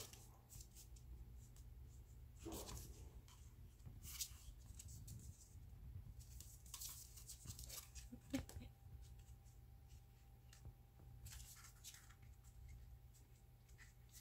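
Quiet, scattered scratching and rustling of a papillon puppy playing and mouthing things on the floor, with a few soft knocks, the sharpest about eight seconds in.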